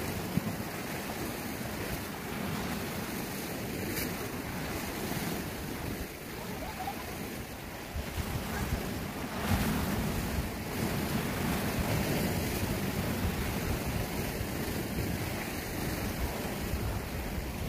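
Sea waves washing and breaking against a rocky shore, with wind buffeting the microphone; a louder surge comes about halfway through.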